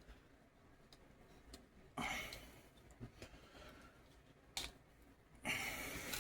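Small plastic model-kit parts clicking and scraping as blade pieces are pulled off the figure. There is a short scrape about two seconds in, a single sharp click a little past four and a half seconds, and more handling noise near the end.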